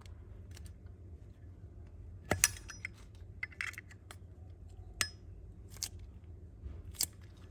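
Metal Zippo lighters being handled: a few sharp metallic clicks and clinks, the loudest about two and a half seconds in with a brief ring, others about five and seven seconds in.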